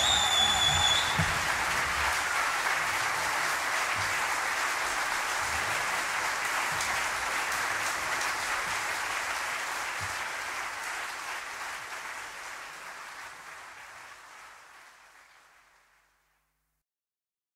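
Concert hall audience applauding after a wind band performance, with a high, sustained whistle from the crowd in the first second. The applause fades out gradually over the last few seconds into silence.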